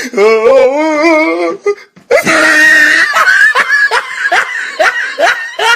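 Loud, exaggerated laughter: a wavering drawn-out voice, then a sudden loud shriek about two seconds in, followed by a string of quick short laughs.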